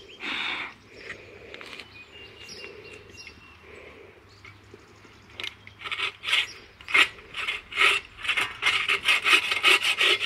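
Bucksaw cutting through a log: a few slow, scattered strokes at first, then about halfway through a steady back-and-forth rasping that grows louder and quickens to two or three strokes a second near the end.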